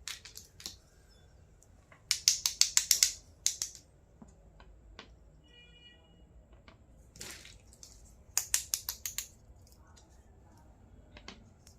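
Handling noises from unboxing a toy kitchen set: two bursts of rapid sharp clicks and taps, with a single brushing swish between them.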